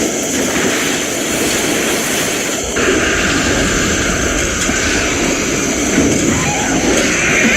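Steady, loud rushing rumble with a constant high hiss; about three seconds in, a higher hissing layer joins and holds.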